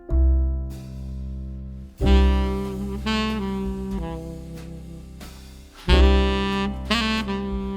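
Background music with jazzy saxophone lines over a piano.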